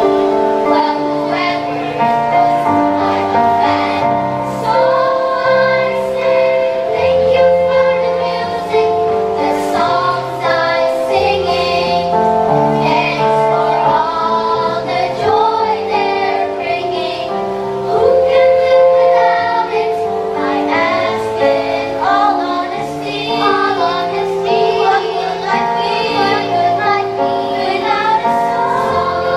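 Children's choir singing a song in harmony into stage microphones, several voices holding notes together over low sustained tones.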